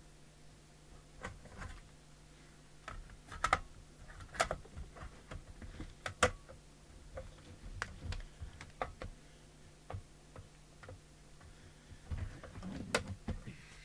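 Irregular light clicks and knocks of a mobile CB radio being handled and reconnected on the bench, over a faint steady hum.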